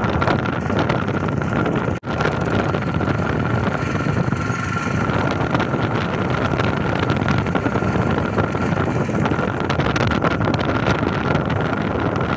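Kubota ZT155 single-cylinder diesel engine of a walking tractor running steadily under load as it hauls a rice-laden trailer through deep mud, with wind buffeting the microphone. The sound drops out for an instant about two seconds in.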